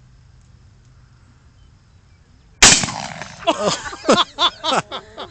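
A single blast from a 12-gauge pump-action shotgun about two and a half seconds in, loud and sudden with a trailing echo, followed by people's voices.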